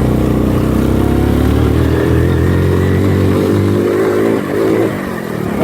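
Small four-wheeler (ATV) engine running under throttle, its pitch climbing gently, then falling away about four and a half seconds in.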